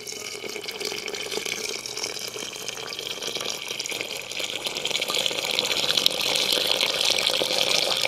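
Water poured in a thin stream into a glazed Mexican clay pot over pinto beans: a steady splashing fill that grows louder about halfway through as the pot fills.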